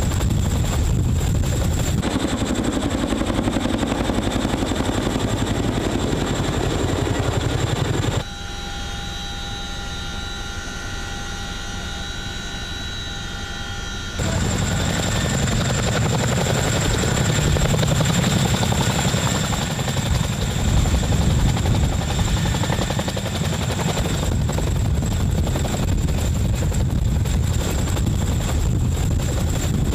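Boeing CH-47 Chinook hovering close overhead: the steady beat of its tandem rotors with turbine engine noise. For about six seconds in the middle the sound is heard from inside the helicopter's cabin, quieter and muffled, with several steady whining tones.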